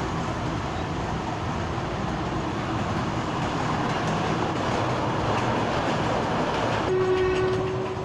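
Kurobe Gorge Railway train running along its track, a steady rumble of wheels and carriage heard from an open-sided car. Near the end a steady pitched tone sounds for about a second.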